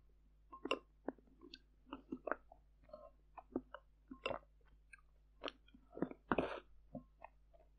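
Close-miked eating sounds of fermented sweet rice soup with glutinous rice balls: short wet mouth clicks and chewing, with a spoon scooping in a glass bowl. A longer, louder slurp comes about six seconds in as the spoon reaches the mouth.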